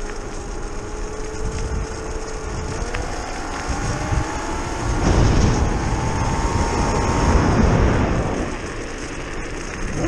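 Modified electric scooter's brushless outrunner motor whining as it accelerates, its pitch rising steadily for several seconds before it fades out. Wind rush and tyre rumble on the microphone swell loudest in the middle.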